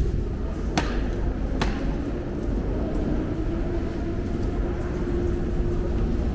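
Underground metro station ambience: a steady low rumble, with two sharp clicks within the first two seconds and a steady hum growing stronger from about halfway.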